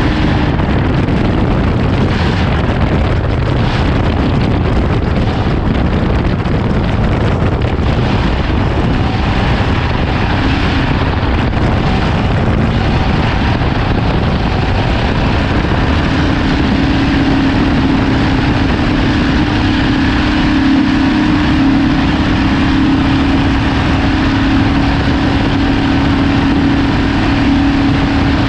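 Ford Ranger desert race truck driving at speed: loud, steady engine and driving noise with no letup. A steady hum comes in about halfway through and holds.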